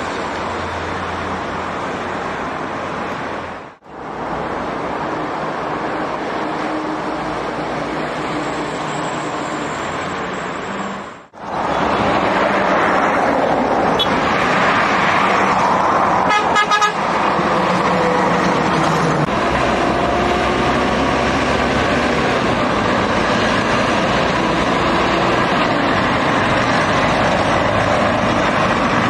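Road traffic: heavy trucks and cars passing on a multi-lane highway, a steady mix of engine and tyre noise. A vehicle horn toots in a quick series of short blasts about halfway through. The sound cuts out briefly twice.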